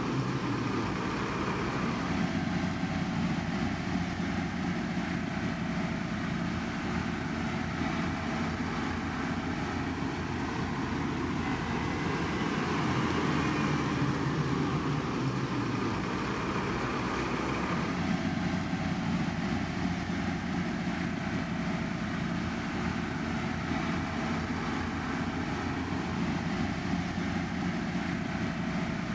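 Heavy road-construction machinery running: a steady engine noise without pauses, changing tone slightly a couple of times.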